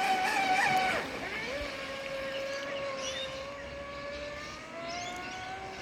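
Pro Boat Supersonicwake RC speedboat's 4070 TP brushless motor running at speed on 10S, a steady whine. The pitch drops sharply about a second in as the throttle comes off, holds lower and steady, then rises a little near the end.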